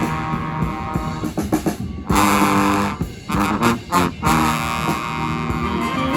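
Street brass band playing: horns holding chords in phrases with short breaks between them.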